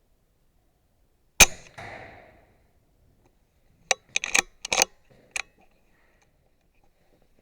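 A single shot from a .22 BSA Superten pre-charged air rifle about a second and a half in, with a duller thud just after it. A quick run of sharp clicks and knocks follows about four to five and a half seconds in.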